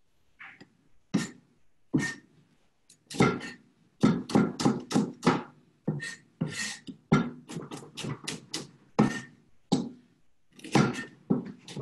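Knife slicing Brussels sprouts into thin slivers: a few separate cuts, then a quick run of chops at roughly two to three a second.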